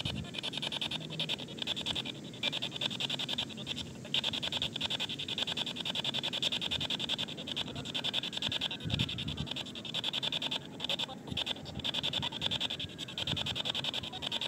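P-SB7T Spirit Box radio scanner sweeping rapidly through radio stations, giving a fast stuttering hiss of static.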